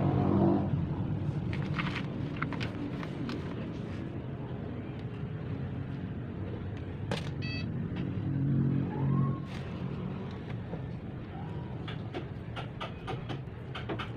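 Low rumble of passing road vehicles, swelling about half a second in and again past the middle, with scattered light clicks.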